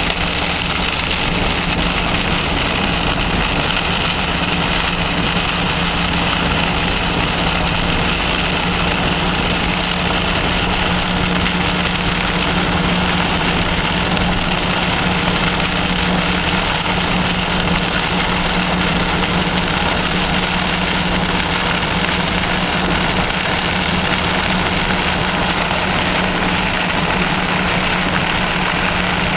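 Steady vehicle engine and road noise heard from inside the vehicle, with heavy rain on the body, and a low hum throughout.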